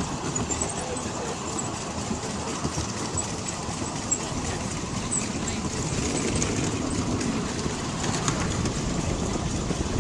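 Miniature railway train running along its track: a steady running noise of the train's wheels on the rails.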